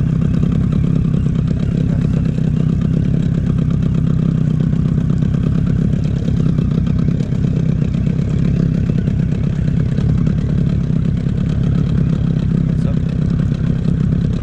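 Small tiller outboard motor running steadily at low trolling speed, close by.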